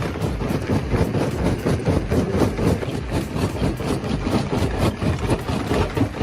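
Heavy machinery engine running steadily, with rapid, irregular knocks over the engine sound.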